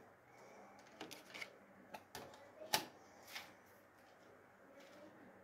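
Faint clicks and clatter of compact discs being lifted out of and set into the open disc tray of a Denon CD changer, with the sharpest click a little under three seconds in.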